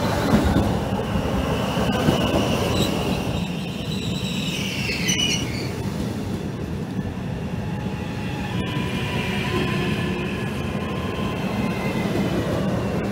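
Trenitalia Rock double-deck electric regional train rolling slowly past at close range: a steady rumble of wheels on rail with several high drawn-out tones over it.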